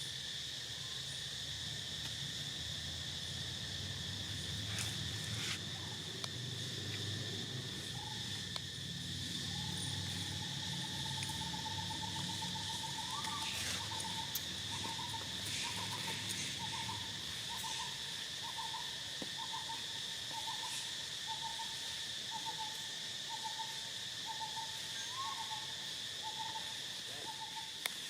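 Steady, high-pitched insect chorus, with a second steady, lower whistling tone joining about a third of the way in that wavers about once a second.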